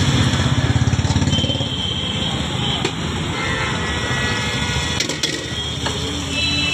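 Street traffic with a motorcycle engine running close by, its pulsing rumble loudest in the first second or so and then easing. A few sharp clinks come later, from a large spoon against the aluminium pan as the yogurt is stirred.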